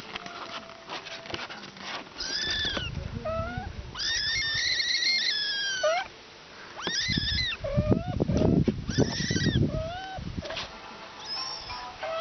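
Cats meowing: several short calls that rise and fall in pitch, and a long drawn-out one about four seconds in, with a burst of rough, scuffling noise around eight seconds in.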